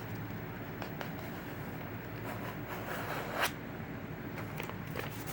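A sheet of computer paper being handled: it is creased and scraped by hand with faint rustles and small clicks, and a louder crinkle about three and a half seconds in.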